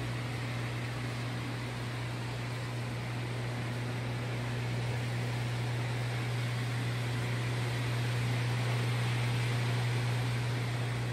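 A steady low machine hum under a constant hiss, unbroken throughout and growing slightly louder partway through.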